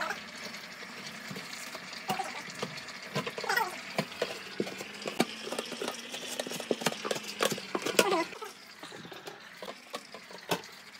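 Kitchen knife cutting raw pork on a cutting board: irregular clicks and knocks of the blade and the handled meat, over a faint steady hum that stops about eight seconds in.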